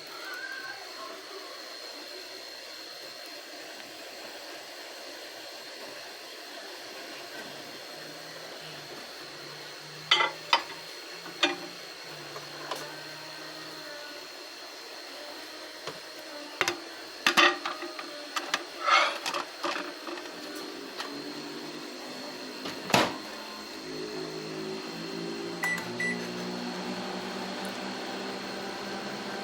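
Microwave oven running with a steady hum and a thin high whine, cooking pasta in water. Several loud, sharp clicks and knocks come in clusters through the middle, and a deeper pitched hum joins near the end.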